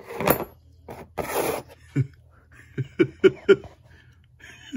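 A man's short breathy exhalations, then a few brief muttered syllables, about four, spread over the last three seconds.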